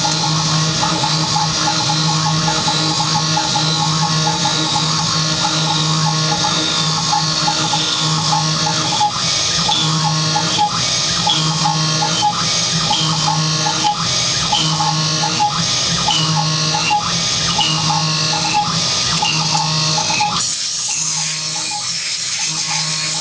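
Small CNC milling machine's spindle and end mill cutting a pocket on an adaptive, trochoidal toolpath: a steady high-pitched whine with a pulsing rhythm about once a second as the tool loops in and out of the cut. About 20 seconds in the low hum drops away and the cutting sound lightens.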